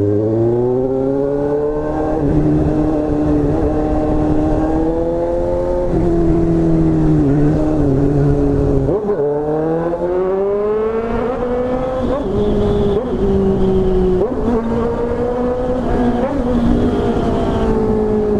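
Motorcycle with a modified, much louder exhaust, ridden under acceleration: the engine note rises, holds, then drops at gear changes several times, about six, nine and fourteen seconds in.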